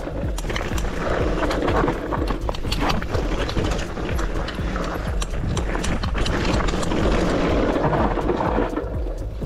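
Cube Two15 downhill mountain bike running fast over a loose, rocky gravel trail: tyres crunching over stones amid a constant rapid clatter of knocks and rattles from the bike.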